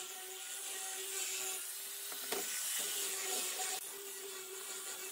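Electric angle grinder fitted with a sanding disc, running at a steady whine while sanding the edge of a pine board, with a hissing rub of abrasive on wood. The rubbing gets louder for a stretch in the middle as the disc is pressed harder onto the wood, with one sharp tick as it first bites.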